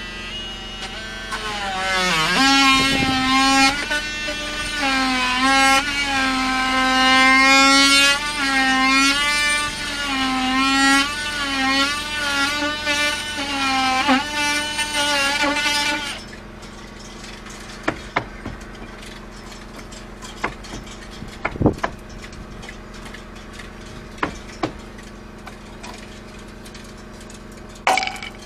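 Handheld power tool running against wooden hull planking, its pitch wavering as it meets the load, for about sixteen seconds before it stops. A few sharp knocks and clicks follow.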